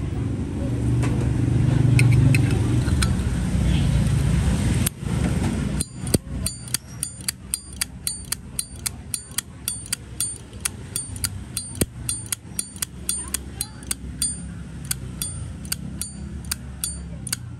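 A low traffic rumble for about the first six seconds. Then a Zippo lighter's lid is flicked open and snapped shut over and over: sharp metallic clinks with a brief ringing note, about two to three a second.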